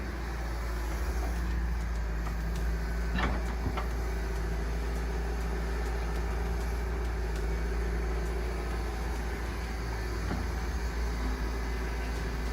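Heavy-equipment diesel engine running steadily, with two brief knocks a little over three seconds in.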